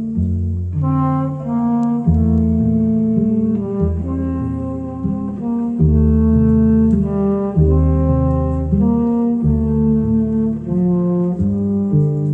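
Music from a vinyl record on an ITT Hifi 8013 direct-drive turntable, through an ITT Hifi 8045 amplifier and Grundig Fine Arts FA 3 loudspeakers, with the tone controls flat and loudness off. It is a steady run of held chords, the notes changing about once a second.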